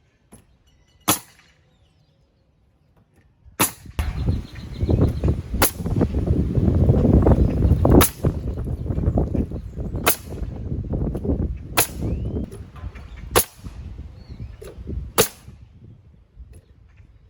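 Pneumatic nail gun driving nails into house siding, eight sharp shots about two seconds apart. From about four seconds in, a Metabo HPT cordless air compressor's motor runs under the shots, refilling its tank, and dies away near the end.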